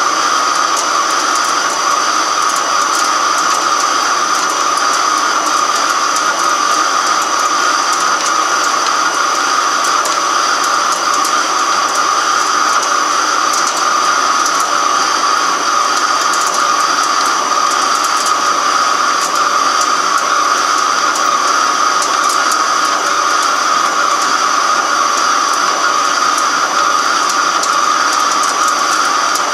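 Microcut BNC-6500 flat-bed lathe turning a large metal cylinder, the tool cutting along the work: a loud, steady machining noise with a strong mid-pitched whine, a fainter high tone and a few faint ticks.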